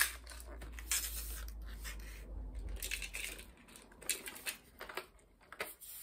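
Parts of a cordless stick vacuum being handled and fitted together: a scatter of small clicks and knocks with light rustling as the aluminium extension tube is pushed onto the handheld unit. The vacuum is not running.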